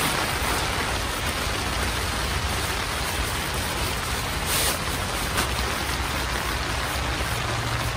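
Sea to Summit Comfort Plus Insulated air sleeping pad being rolled up with its valve open: a steady hiss of air being pushed out, with brief rustles of its nylon shell about halfway through.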